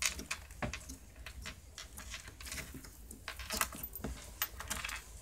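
Soft putty being pressed and squeezed by fingers, giving irregular small sticky clicks and crackles.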